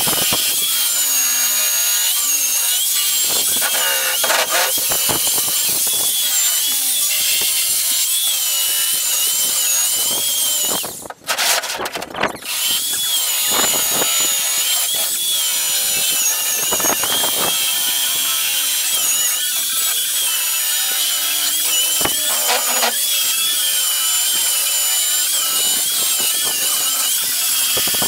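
Handheld electric router trimming the fibreglass-skinned edge of a foam-core panel. It gives a loud, steady high whine that dips and wavers as the bit cuts, and stops briefly about eleven seconds in before starting again.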